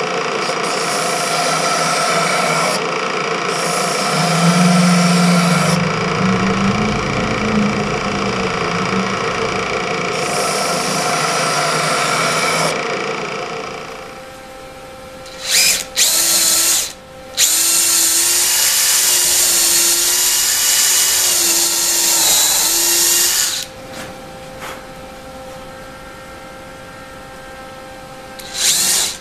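Benchtop belt-and-disc sander running, with a piece of wood pressed against the belt several times, for about the first half. After that a power drill drills into wood in a few short bursts and then a run of about six seconds, and it starts again near the end.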